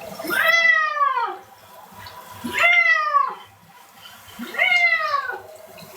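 Domestic cat meowing loudly while being bathed: three long meows about two seconds apart, each rising then falling in pitch, a running complaint at the bath.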